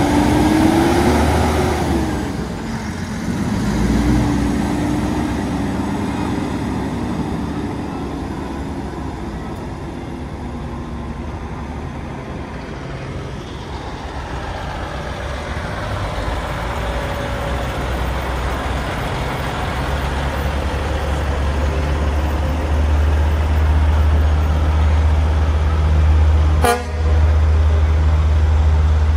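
Semi trucks in a parade: diesel engines running and air horns tooting, with a heavy, steady diesel rumble building close by over the last third.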